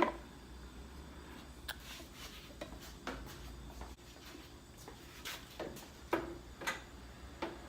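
Scattered light clicks and knocks of hands fitting cold-air-intake parts in a car's engine bay, beginning with one sharp click.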